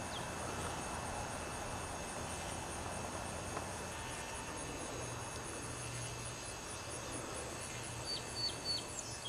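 Summer outdoor ambience dominated by insects chirping in a steady, rapid high pulse, about four chirps a second, over a constant high whine. Three short high chirps sound near the end.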